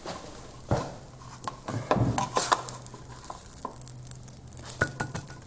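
Plastic spatula and nonstick frying pan clattering as a pancake is lifted out: a few scattered knocks, taps and scrapes, over a faint steady low hum.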